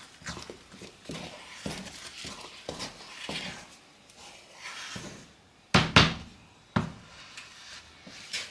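Wooden spoon stirring and working thick sadza (maize-meal porridge) in a small saucepan, with repeated soft, irregular slaps as the stiff porridge is folded and pressed. A few louder, sharp knocks come about six seconds in and again just before seven, the spoon striking the pot.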